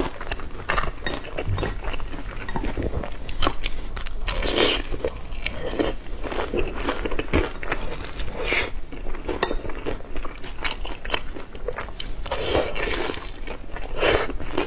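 Close-miked chewing and biting of pan-fried dumplings: irregular wet mouth clicks and smacks, with louder bursts as she takes fresh bites.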